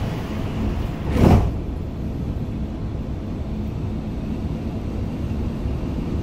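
Steady low rumble inside a Dubai Metro carriage standing at a station, with one brief loud whoosh about a second in.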